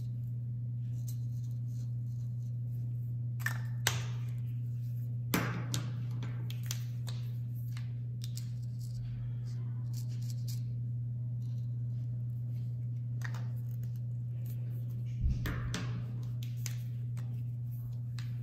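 Paint marker tips dabbing and scraping on paper, with a few sharp clicks and knocks as markers and caps are handled, over a steady low hum.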